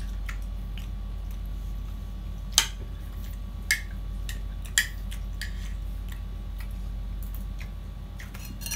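Mouth clicks and smacks of someone chewing boiled pork and cabbage, with three sharper smacks about a second apart near the middle, over a steady low electrical hum.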